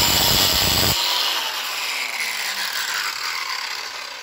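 Cordless angle grinder grinding steel held in a vise for about a second, then lifted off the work, its motor whine falling in pitch and fading as the wheel spins down.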